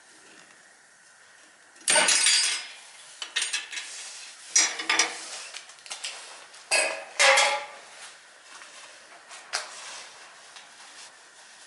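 Metal tools or parts clinking and clattering in several separate bursts, the loudest near the start and in the middle.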